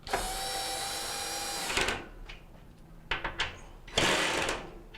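Power driver running as it tightens the bolts that hold the dryer drum's vanes (baffles), a steady whine for about two seconds. A few clicks follow, then a shorter burst about four seconds in.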